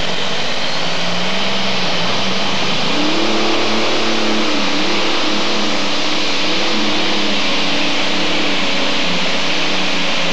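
Modified pulling tractor's engine at full throttle, hauling a weight-transfer sled under heavy load: a loud, steady roar whose pitch wavers up and down.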